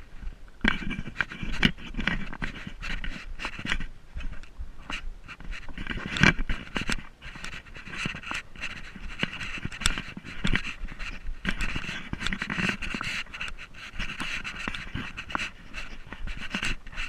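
Rapid, steady panting breaths close to the microphone, with many short clicks and knocks of steps or handling over them.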